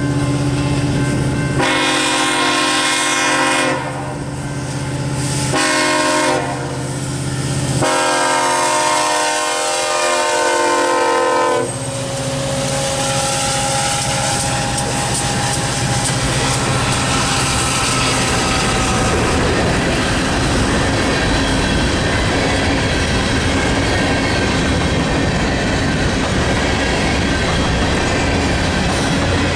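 BNSF diesel locomotive horn blowing the grade-crossing signal, long, long, short, long, its pitch dropping at the end of the last blast as the locomotive passes. Then the diesel locomotives run by, followed by the steady clatter of empty coal hopper cars rolling past on the rails.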